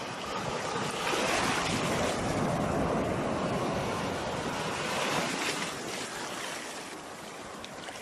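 Sea waves washing onto a shore: a surge of surf builds about a second in, then slowly ebbs away over the last few seconds.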